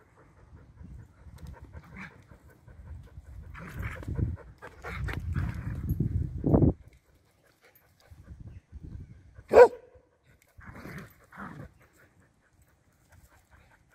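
A dog panting close to the microphone, with low rumbling from the movement of the camera it wears, heaviest in the first half. About two-thirds of the way in comes one short, sharp dog call, the loudest sound.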